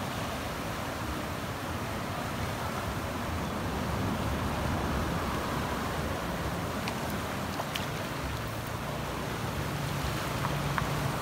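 Steady rush of fast-flowing river water pouring through and below a sluice gate. A low steady hum joins in about halfway through and grows stronger near the end.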